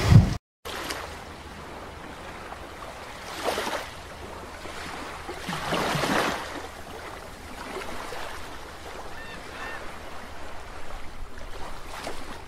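A brief handling bump as the camera is stopped, then an underwater-style logo sound effect: a steady watery rush that swells into two whooshes, about three and a half and six seconds in, with a few faint short chirps near the end.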